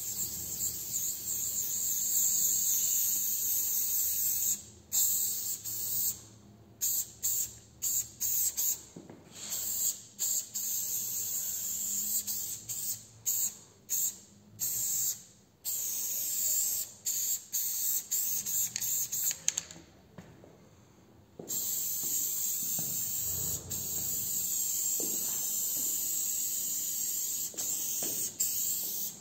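Aerosol spray-paint can hissing, first in a long steady spray, then in many short stop-start bursts, and after a pause of about two seconds, in a long steady spray again.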